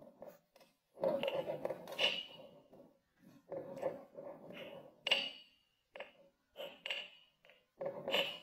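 Wooden honey dipper pressing and scraping into kinetic sand packed in a glass tumbler: irregular bursts of gritty crunching, with about four sharp clinks where the wood knocks the glass and it rings briefly.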